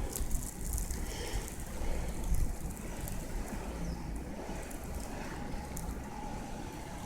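Blizzard wind buffeting the microphone: a low rumble with hiss and crackle, gustier in the first couple of seconds and then steadier.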